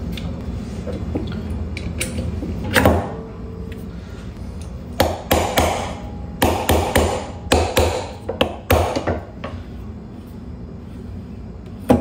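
Sharp metal taps and knocks on an electric fan's motor housing: one knock about three seconds in, a quick run of about ten taps between five and nine seconds, and a last one near the end, over a steady low hum.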